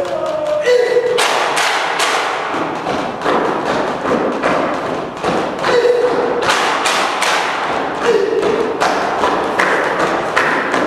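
A dense, irregular run of loud thumps and knocks from performers on a theatre stage, several a second, with a few short held tones over them, one about six seconds in and one a little after eight seconds.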